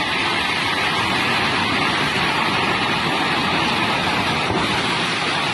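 A swollen river in flood rushing past in a steady, loud, unbroken wash of water noise.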